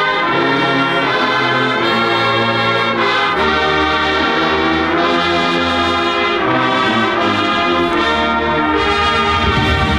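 Full marching band brass section, with trombones, trumpets and horns, playing long held chords at full volume. Deep low brass notes come in about three seconds in.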